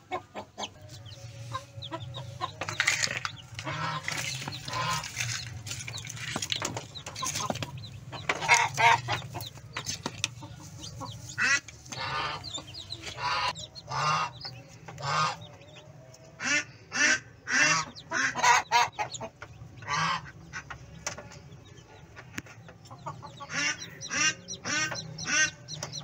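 Newly hatched chicken chicks and Muscovy ducklings peeping, many short high calls overlapping in quick runs, with a low steady hum underneath.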